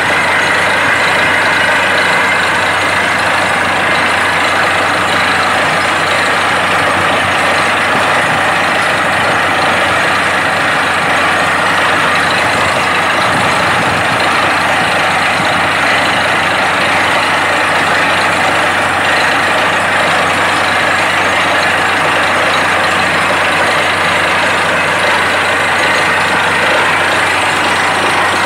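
Truck-mounted borewell drilling rig running steadily: the engine and air compressor drone together with the rush of compressed air blowing water and slurry up out of the bore.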